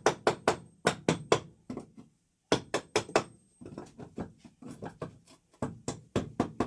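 Hammer striking wood in quick runs of blows, about five a second, with short pauses between runs. A glued support board is being fixed up underneath weak subfloor wood.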